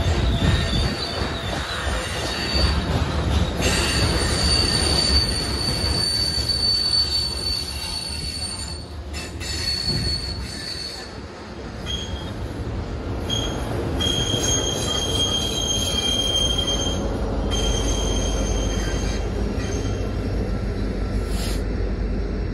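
Coal train hopper cars rolling by on a curve, steel wheels squealing in several high, steady tones that start and stop over a continuous low rumble. The rumble grows heavier in the last few seconds as the rear diesel locomotive passes.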